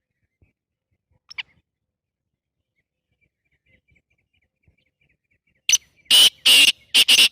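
Black francolin calling: one short note about a second and a half in, then a loud run of several harsh notes near the end.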